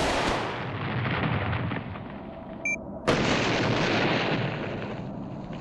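Two explosion-like booms, one at the start and one about three seconds in. Each starts sharply and fades away over a couple of seconds, and each is preceded by a short high electronic beep.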